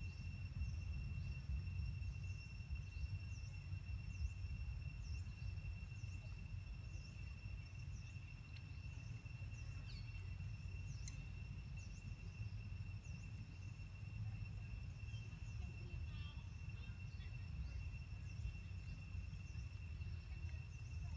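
Outdoor ambience: insects trilling steadily in several high pitches, one of them pulsing on for a few seconds and off again, with scattered short bird chirps over a steady low rumble.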